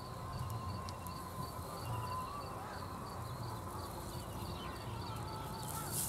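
Faint outdoor ambience: insects chirping in a steady, evenly repeated high pulse of about three a second, with a thin wavering whistle and a low rumble underneath.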